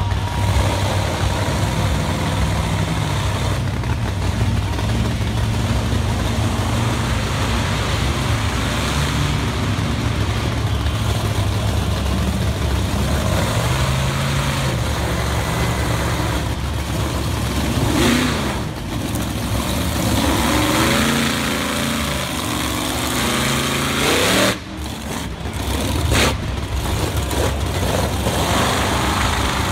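Monster truck engine running loud and revving, its pitch stepping up and down with the throttle, with several quick rising revs in the later part.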